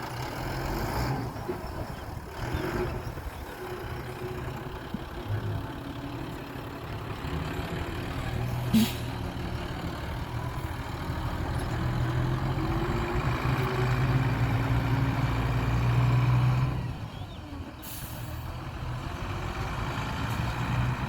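Heavy diesel construction machinery running, its engine hum building in loudness and then dropping back about 17 seconds in. A single sharp knock comes about 9 seconds in, and a short air hiss near the end.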